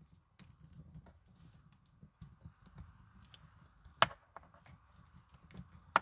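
Plastic wiring-harness connectors being handled and plugged together: faint rustling and small scattered clicks, with one sharp click about four seconds in.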